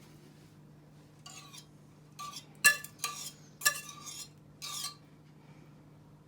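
Metal utensil clinking and scraping against metal cookware, about six short ringing knocks and scrapes as beaten egg and milk is poured and spooned out into pastry-lined tins.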